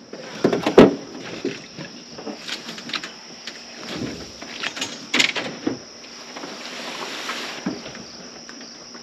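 Hollow knocks and clatter of a small rowboat bumping the dock as a person climbs out onto it, with steps on the deck boards; the loudest knocks come about a second in and about five seconds in. Crickets trill steadily behind.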